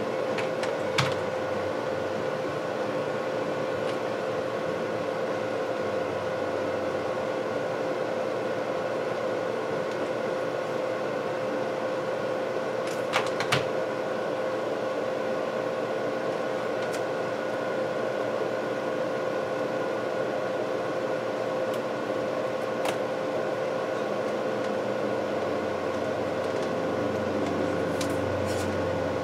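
A steady machine hum with a constant mid-pitched whine, like a cooling fan. A few light clicks and taps come about a second in, twice in the middle and near the end, as the tablet and its plastic parts are handled.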